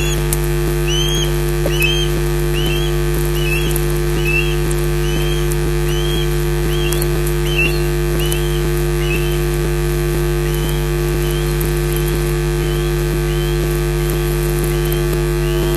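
Male osprey giving its repeated whistled display call during a sky-dance flight, a short rising-falling whistle a little over once a second. The calls are clearer for the first nine seconds or so, then carry on fainter. Under them runs a loud, steady electrical hum from the recording chain.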